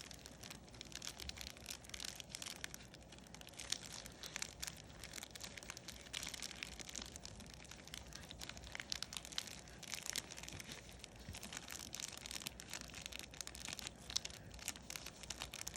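Plastic of a colostomy bag crinkling and rustling as it is handled, a dense run of soft crackles with a few sharper snaps.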